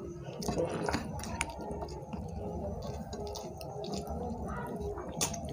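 Close-up eating sounds: chewing, with soft wet squishes and small clicks of fingers working rice and curry on a plate.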